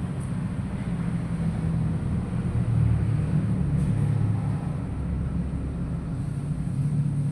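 A steady low rumble that swells slightly in the middle.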